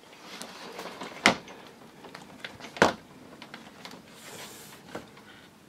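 Folding shower door moving in its track, with two sharp clacks about a second and a half apart and a softer knock near the end, over faint rustling and sliding.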